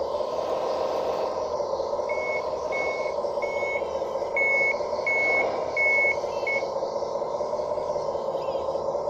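Scale-model bulldozer's reversing beeper sounding about seven short, evenly spaced beeps at one high pitch, starting about two seconds in and stopping after six and a half seconds. Under them runs a steady drone from the machine's drive.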